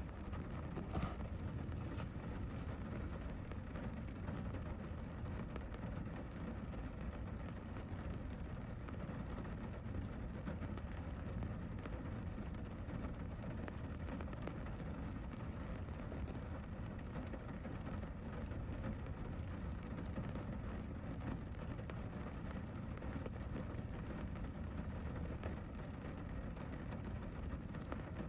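Steady rain, a continuous deep, even rush, with a couple of sharper ticks about one and two seconds in.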